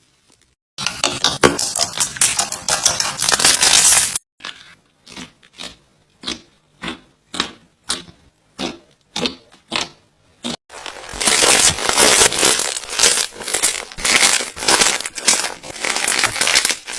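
Slime being squeezed and worked by hand, making a dense run of small crackles. About four seconds in it changes to a series of about ten separate presses, roughly one every half second, before dense squeezing starts again near the middle.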